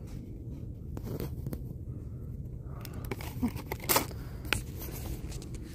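Plastic product packaging crinkling and clicking as items are handled, a few separate clicks with the loudest about four seconds in, over a steady low hum of store background noise.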